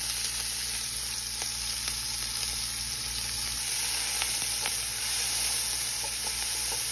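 Finely chopped onion frying in hot oil in a large pot: a steady sizzle, with a few faint clicks.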